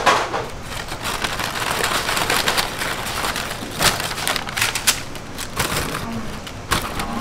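Crisp fried waffle-cut chips crackling and rustling as metal tongs scoop them from a mesh strainer and drop them into a paper bag, with many small irregular clicks.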